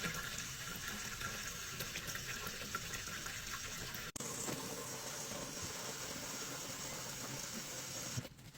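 Water running steadily from a kitchen faucet into the sink, with a brief break about halfway through, then cut off suddenly near the end.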